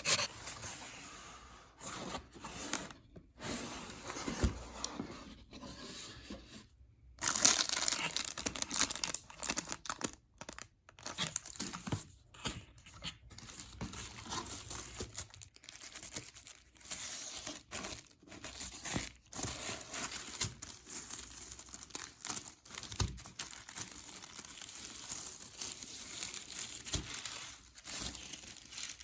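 A package being unwrapped by hand: packaging tearing and crinkling in irregular bursts, briefly pausing and then getting busier and louder about seven seconds in.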